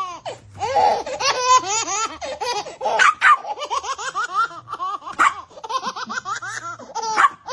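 High-pitched, hearty laughter in quick repeated bursts that runs on without a break.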